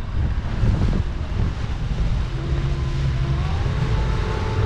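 Wind buffeting the microphone over a boat's motor running underway, a steady low rumble. Faint steady tones, some sliding upward, come in about halfway through.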